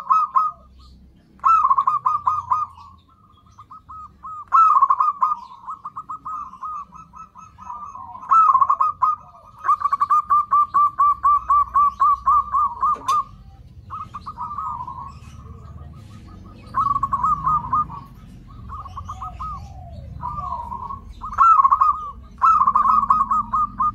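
Zebra doves (perkutut) cooing in repeated bursts of quick, staccato notes, with one long unbroken run of rapid notes, about seven a second, near the middle. This is the calling used as a lure to draw and set off other perkutut.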